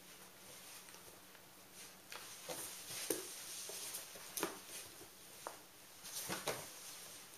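Golden retriever puppy tussling with its padded fabric bed on a wooden floor: the bed rustling and scraping as it is pulled about, with scattered sharp taps and knocks of paws on the boards, starting about two seconds in.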